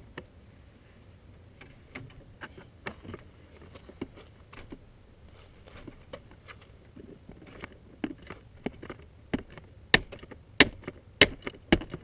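Irregular clicks and knocks of objects being handled and moved about, sparse at first and coming faster and louder over the last two to three seconds.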